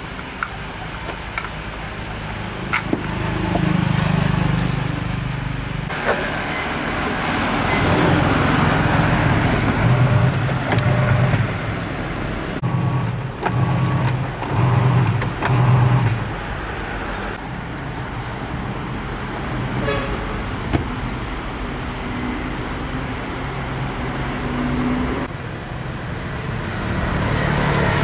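Road traffic passing, with a few short horn toots near the middle.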